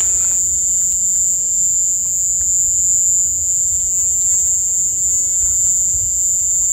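Night insects, crickets, trilling steadily at a high pitch without a break.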